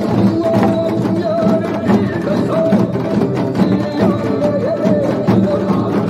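A group of janggu (Korean hourglass drums) struck with sticks in unison, a steady beat of sharp stick strokes on the drumheads and rims, played along to a recorded trot song with a wavering melody line.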